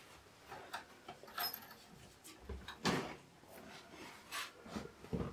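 Light, irregular knocks and clunks of a sheet-steel Codegen 4U rack-mount computer case being handled and turned around, the clearest knock about three seconds in.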